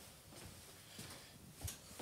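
Faint footsteps on a bare concrete floor: soft thuds roughly every half second, one louder step near the end.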